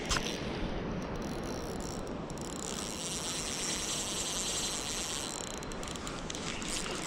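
Spinning reel buzzing for about three seconds, starting a couple of seconds in, over a steady rush of creek water.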